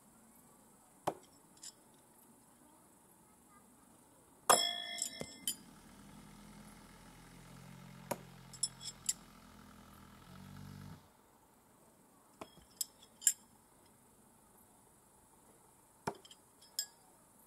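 No-spin thrown knives striking a wooden log target one after another: a series of sharp knocks and metallic clinks, the loudest a metallic clink about four and a half seconds in that rings on briefly. A low hum runs for several seconds in the middle.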